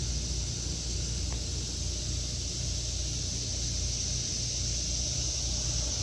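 Chorus of cicadas buzzing steadily, a little louder in the middle, over a steady low rumble.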